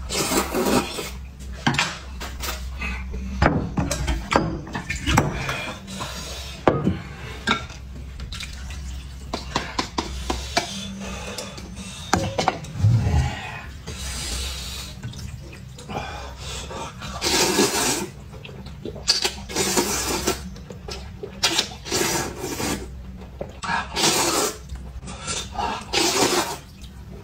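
A person slurping noodles from a bowl of soup in repeated bursts, each a second or two long, with the clicks and clinks of chopsticks against the bowl between them.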